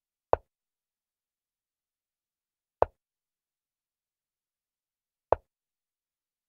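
Chess-app piece-move sound effect: three short, identical knock-like clicks, evenly spaced about two and a half seconds apart, one for each move as a piece lands on the board.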